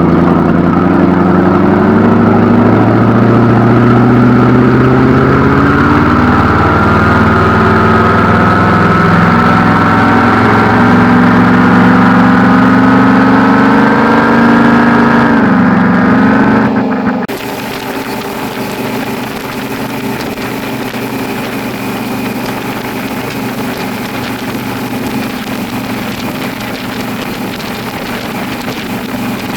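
Boat engine running at cruising speed, its pitch drifting slowly. About seventeen seconds in, the sound cuts abruptly to a quieter, steadier engine drone with more hiss.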